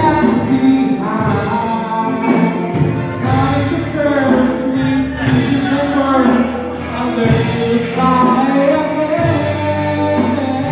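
Live band music: a man singing into a microphone over electric guitars, bass guitar, keyboard and drums.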